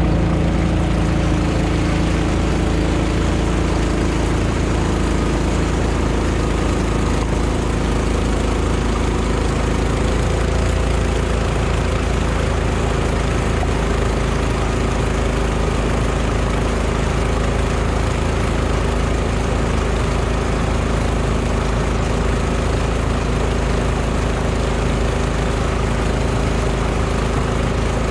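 Motorboat engine running steadily at an even pitch, with water rushing and splashing along the hull.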